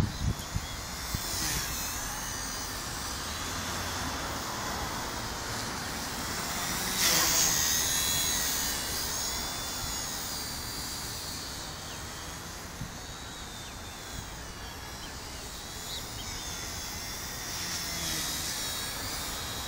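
WLtoys V977 Power Star X2 RC helicopter in flight, its electric motors and rotors whining, the pitch rising and falling as it manoeuvres and loudest about 7 seconds in. Wind rumbles on the microphone underneath.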